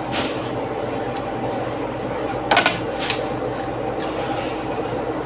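Steady machine hum, like a fan or refrigeration unit, with a short sharp clatter about two and a half seconds in and a lighter click half a second later.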